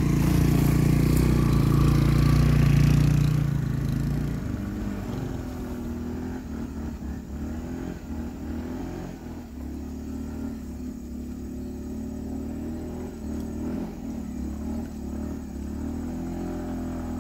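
Small motor scooter engines revving hard under load in deep mud, loudest for the first three or four seconds, then running more quietly with a wavering pitch.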